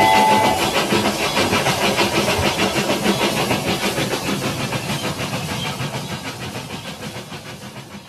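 Toy steam locomotive running on its track with a hissing, quickly and evenly repeating chuff, growing steadily fainter as it moves away. Its two-tone whistle ends just after the start.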